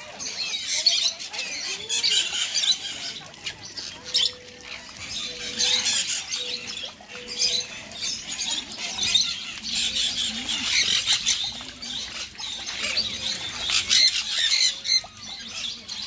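Many aviary birds chirping and squawking together in a dense, high-pitched, continuous chatter, with louder single calls standing out now and then.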